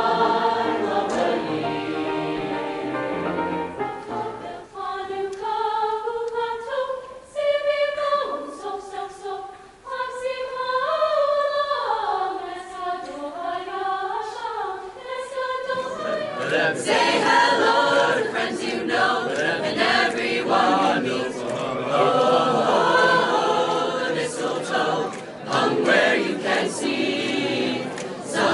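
Mixed high school choir singing. The full choir sings at first, thins to a few voices with gliding lines from about 5 to 16 seconds in, then sings full and dense again for the rest.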